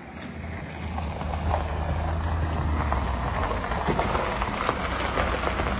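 Pickup truck engine running as the truck drives up and approaches, growing louder over the first couple of seconds and then holding steady, with some wind on the microphone.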